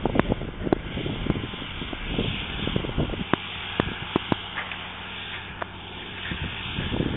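Belarus 1221 tractor's diesel engine running steadily at a distance while pulling a field implement. Irregular sharp clicks and knocks close to the microphone sound over the engine hum.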